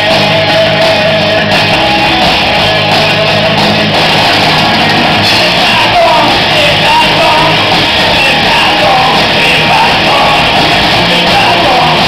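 A live rock band plays loudly on electric guitar, bass guitar and drum kit. A sung lead vocal comes in about five seconds in.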